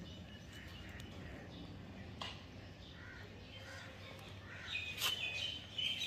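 Young rosy-faced (peach-faced) lovebird giving faint, short high chirps as it is hand-fed soft rice, most of them near the end.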